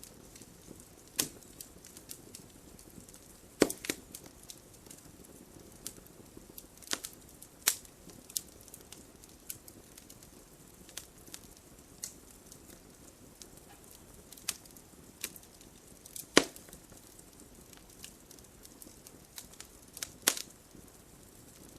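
Wood fire crackling: a soft steady hiss broken by irregular sharp pops and snaps, a few of them much louder than the rest.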